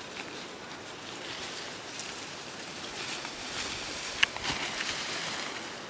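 Dry brush and leaf litter rustling and crackling as a person pushes through undergrowth by hand, with one sharp snap a little past four seconds in and denser crackling just after it.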